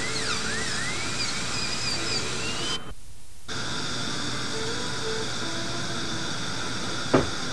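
Dental handpiece whining as its bur grinds and finishes a dental bridge, its pitch dipping and rising with the load, cutting off abruptly about three seconds in. After that a steady hiss remains, with a single sharp click near the end.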